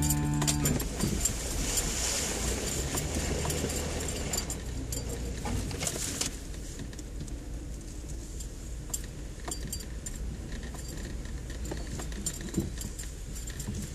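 Jeep driving slowly over a rutted dirt trail, heard from inside the cab: a steady low engine drone with scattered rattles and clicks. Background music cuts off about a second in.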